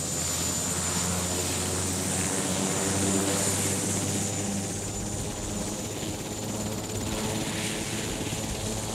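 Marine One, a Sikorsky VH-3D Sea King helicopter, running: a steady rotor and turbine din with a thin, high turbine whine above it.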